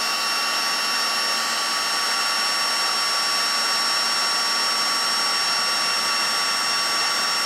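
Electric heat gun running steadily, a constant rush of blown air with a thin high whine on top, as it heats a solder-seal heat-shrink wire connector.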